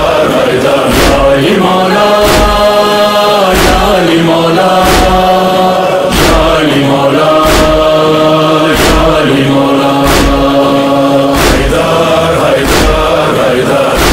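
Devotional chant (a manqabat in praise of Ali): voices hold long sung notes that step from pitch to pitch over a steady beat that strikes about once a second.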